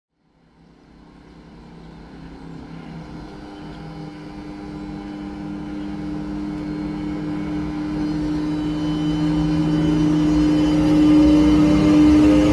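Czech class 163 electric locomotive hauling a train of double-deck coaches as it approaches and passes: a steady two-tone electrical hum over the rumble of wheels on rail, fading in from silence at the start and growing steadily louder as the train nears, with a rising whine near the end.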